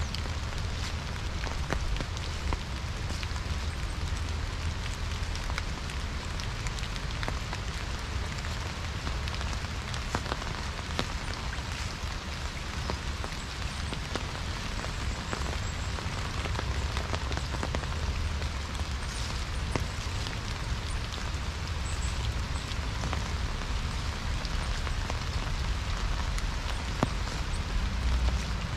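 Steady rain falling: an even hiss with many small drop ticks, over a low steady rumble.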